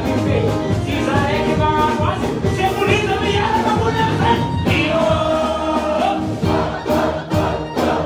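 Loud live music played over PA speakers, with a male singer on microphone and many voices singing along.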